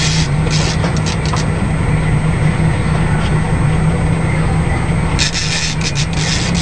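Boat engine running steadily at trolling speed, a constant low drone. Bursts of raspy hiss come in the first second and again about five seconds in.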